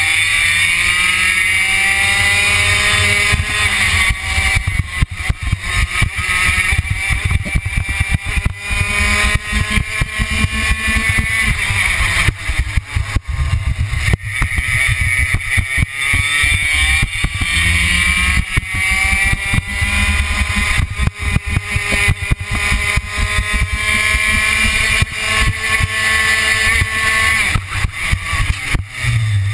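Onboard sound of a racing kart engine at speed, its pitch climbing in long rising sweeps as it accelerates and dropping back off several times as it slows for corners.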